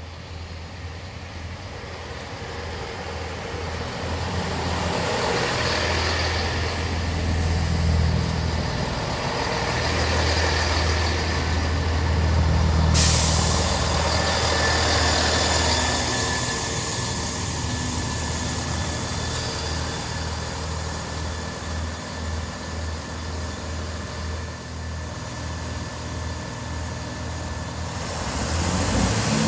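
Class 166 diesel multiple unit drawing into the platform: its diesel engines hum and its wheels run on the rails, growing louder as it approaches and passes. About halfway through a sudden hiss starts and carries on.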